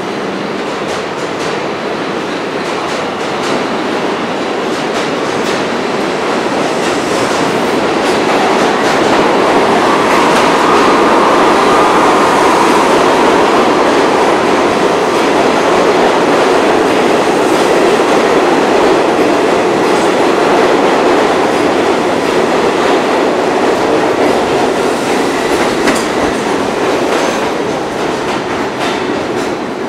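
Budd R32 subway train pulling out of an underground station and running past, its wheels clattering over rail joints as it gathers speed. The noise builds over the first several seconds, stays loud while the cars go by, and drops near the end as the last car clears.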